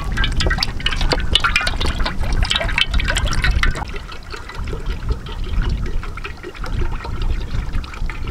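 Cooking oil poured from a large plastic bottle into a steel wok, splashing and trickling. The pour is splashier for the first few seconds, then settles to a quieter, steadier trickle, with wind rumbling on the microphone throughout.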